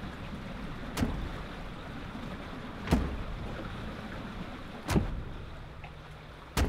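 Steady wind noise with a deep thud about every two seconds, three in all, and a sharper knock near the end.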